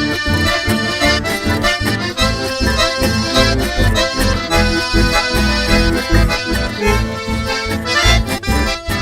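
Instrumental chamamé: an accordion carries the melody over a steady, evenly pulsed bass accompaniment, with no singing.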